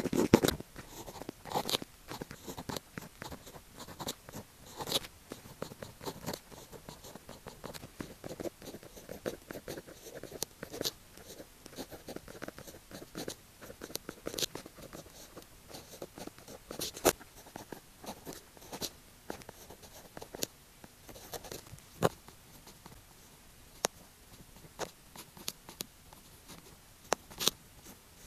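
Pen writing Chinese characters on paper: scratchy strokes broken by frequent sharp ticks as the tip meets the page, irregular in rhythm.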